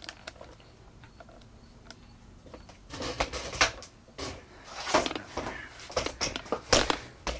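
Handling noise from the camera being moved about: irregular rustling, clicks and knocks that start about three seconds in.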